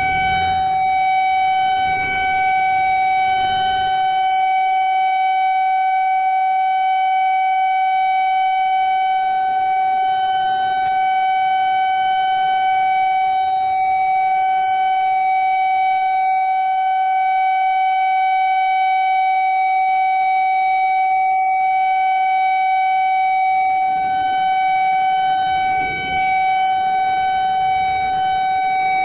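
Emergency alert tone: one loud, steady alarm note held without a break and without changing pitch, rich in overtones. A faint low rumble lies beneath it at the start and again near the end.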